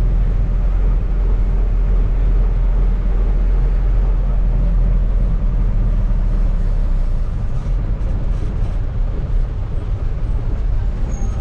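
Interior noise of a moving bus: its Hyundai diesel engine running steadily with road rumble. It turns a little quieter about seven seconds in.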